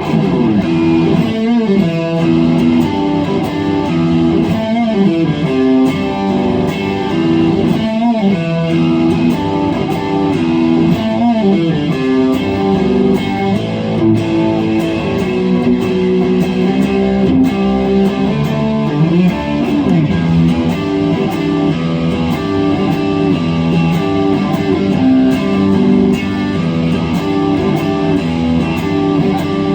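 Electric guitar, a Fender Stratocaster through a Marshall amplifier, playing a blues-rock line of sustained notes with repeated bends sliding up and down in pitch.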